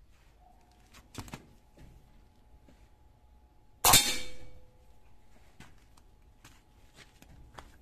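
A single shot from a Marauder-style PCP air rifle about four seconds in: a sharp crack that dies away within about half a second, with a short ringing tone after it. A couple of faint clicks come about a second in.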